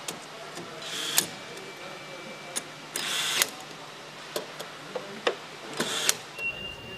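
Handheld assembly-line power tool running in three short bursts, with sharp clicks and knocks of tool and parts between them, over steady factory background noise.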